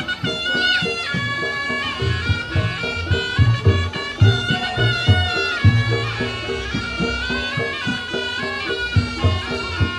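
Reog Ponorogo gamelan played live: a slompret (shawm-like double-reed pipe) carries a wavering, ornamented melody over steady drum strokes and regularly repeated pitched percussion notes.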